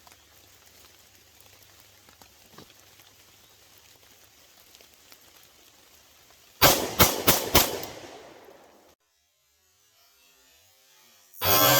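Prototype pistol firing four shots in quick succession, about three a second, emptying one chambered round and three in the magazine, with a short ring after the last. After a brief silence, a loud steady hum starts near the end.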